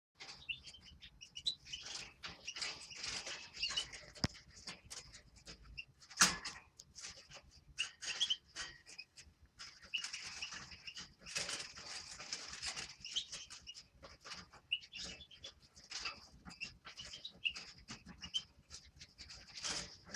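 Caged finches (common redpoll, Eurasian bullfinch and European greenfinch) giving many short chirps and twitters, with one sharp knock about six seconds in.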